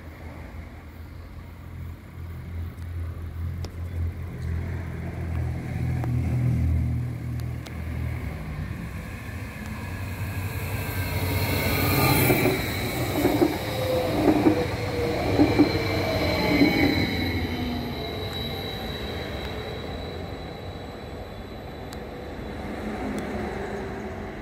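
A train passing on the main line: a low rumble builds up, then gets loudest about halfway through, with a regular beat of wheels roughly once a second, and fades away again.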